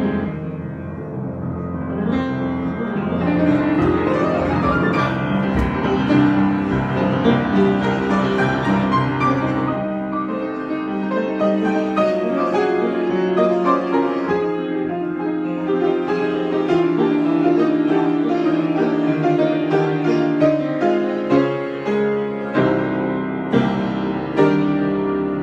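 Piano playing an improvised piece: sustained chords with a moving melody over them.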